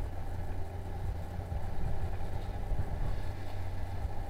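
A motorboat engine running steadily at low speed, mixed with a fluctuating low rumble of wind and water.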